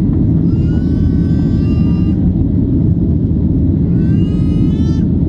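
Cabin noise of a Boeing 737-800 climbing after takeoff, heard from a seat over the wing: a steady low rumble of its CFM56-7B jet engines and the air rushing past the fuselage.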